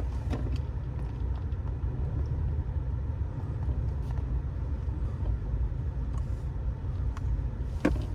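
Subaru Baja's flat-four engine idling, a steady low rumble heard from inside the cab, with a few faint clicks and a brief pitched sound near the end.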